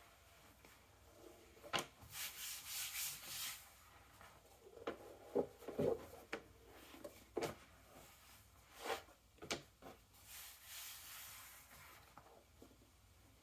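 Large sheets of leather being handled and slid over one another: dry rubbing and rustling in two longer stretches, with several sharp taps as the hides are lifted, moved and flapped down.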